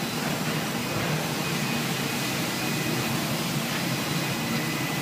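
Trumpf Trumatic HSL 2502 C twin-head CNC laser cutting machine running: a steady mechanical hum and hiss with faint high whistling tones.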